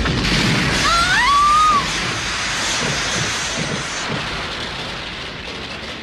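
Loud rushing hiss of a soundtrack effect, fading slowly over the last few seconds, with a short rising whine about a second in.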